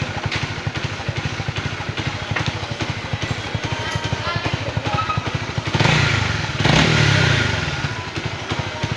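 Honda CB150R's single-cylinder engine running with a fast, even pulse, revved twice in quick succession about six seconds in, each rev dropping back. The throttle response is being tested after the fuel pump was repaired and its pressure brought up to 40 PSI.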